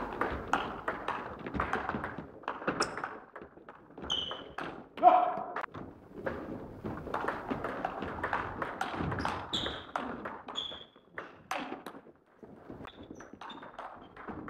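Table tennis rally: the celluloid ball clicking off the bats and the table in quick succession, with short squeaks of shoes on the wooden floor, in an echoing gym hall.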